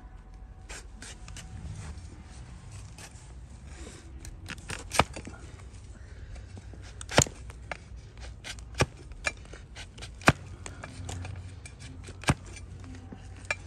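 Donkey hoof being trimmed: sharp, irregular snips and cracks as pieces of thick, overgrown hoof horn are cut away, about a dozen over the stretch.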